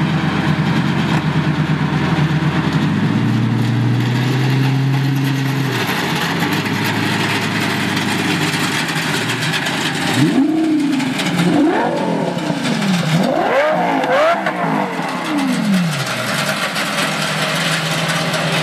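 Lamborghini Gallardo V10 idling through a pair of oversized megaphone-style exhaust extensions, then revved about four times in quick succession, each rev rising and falling in pitch, before settling back to idle.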